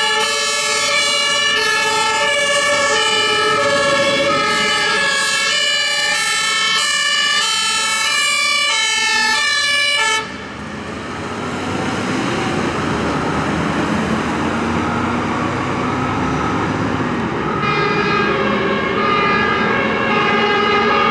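German two-tone fire-engine sirens from several fire trucks, each alternating between a high and a low note, out of step with one another. About ten seconds in the siren tones stop abruptly and a fire truck's engine and tyres pass close by. The two-tone sirens start again a few seconds before the end.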